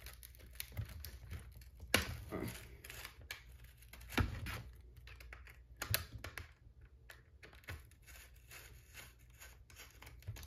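Phillips screwdriver turning a small screw out of a Tamiya CC01 RC car's front hub: faint, irregular clicks and scrapes, with a few sharper ticks about two, four and six seconds in.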